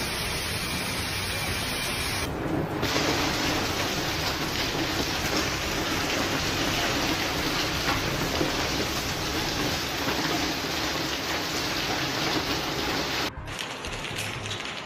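Large hailstones pelting the ground and nearby surfaces in a heavy hailstorm: a dense, steady hiss of countless impacts, like heavy rain. The sound changes abruptly about two seconds in and again near the end, where it turns quieter.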